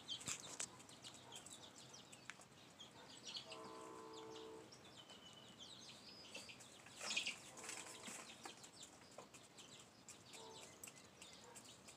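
Faint, drawn-out clucks from a chicken, three times, the longest about three and a half seconds in, with soft scattered clicks between them.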